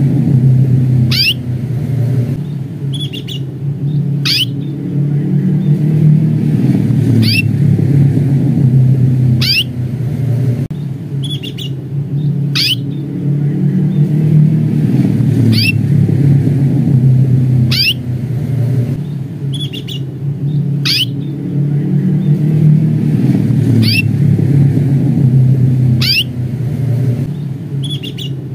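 Canary giving repeated 'cuit' call notes: short, sharp chirps that sweep downward in pitch, one every one to two seconds. They sit over a steady, louder low rumble.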